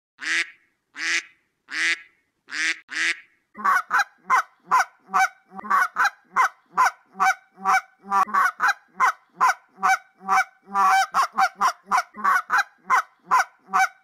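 A duck quacking five times, then a domestic goose honking in a rapid series of calls, about three a second, from about three and a half seconds in.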